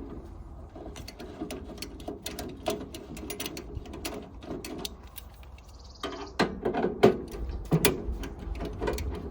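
Hand tools ratcheting and clicking against metal as the service cable's conductors are unbolted from the terminals of a meter socket. The clicking runs quickly for about five seconds, pauses briefly, then comes back with louder sharp knocks.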